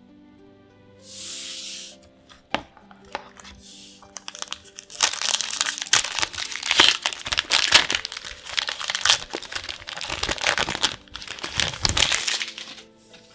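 Foil wrapper of a Magic: The Gathering booster pack being torn open and crinkled, a dense run of crackling from about five seconds in until just before the end, after a few light clicks.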